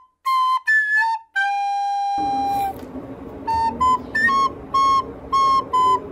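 Background music: a light melody of short separate pitched notes, with one longer held note about a second and a half in and then notes about two a second. Faint room noise comes in underneath from about two seconds in.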